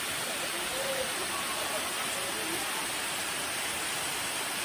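Steady rush of falling water from a waterfall, an even hiss that does not change, with faint distant voices in the first couple of seconds.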